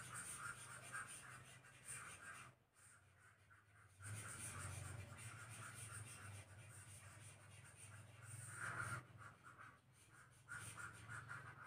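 Faint, intermittent rubbing as handwritten working is erased, in stretches broken by a couple of short pauses, over a low hum.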